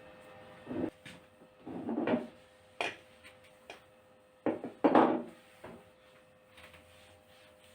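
Kitchen work sounds: several short knocks and scrapes of dishes and utensils being handled and set down, the loudest about five seconds in, over a steady faint hum.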